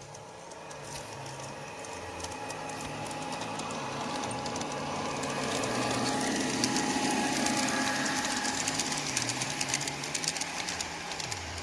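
Aristocraft G-scale Class 66 (EMD JT42CWR) model locomotive running past. Its onboard sound module plays a diesel engine sound through a small speaker, and its wheels tick over the track. It grows louder to a peak about six seconds in, then fades a little.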